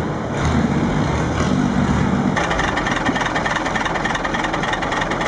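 Long-tail boat engine running as a boat comes toward the shore, an even low drone. At about two and a half seconds this changes abruptly to a long-tail boat's exposed car engine heard up close from on board, running fast with a loud, rapid, even beat.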